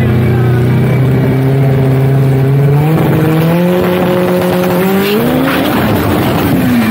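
Drag race car engine held at steady revs at the line, revs climbing in steps, then a rough burst of tyre noise as it launches, and the engine note falls away.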